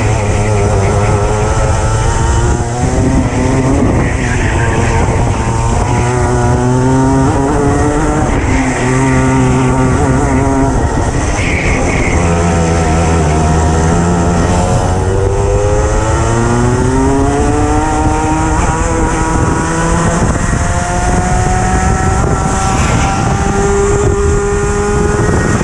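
Racing kart's engine heard from onboard at full race pace, its pitch climbing steadily as it accelerates and dropping sharply several times as the kart slows for corners.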